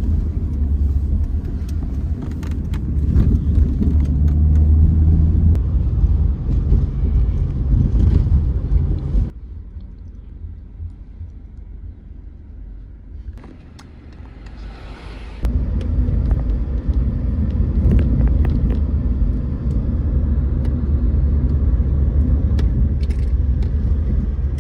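Steady low rumble of a car on the move, heard from inside the cabin. It cuts out abruptly about nine seconds in, leaving a quieter stretch of about six seconds, then returns just as abruptly.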